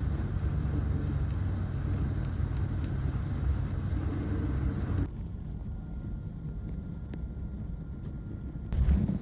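A steady low engine hum, like a vehicle running, that cuts off abruptly about five seconds in. Quieter outdoor noise with a faint steady tone follows, and wind buffets the microphone near the end.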